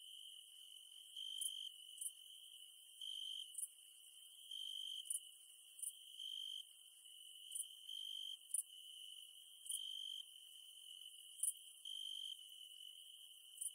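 Dusk insect chorus: a steady high-pitched trill with a louder pulsing call every couple of seconds and short, very high chirps in between.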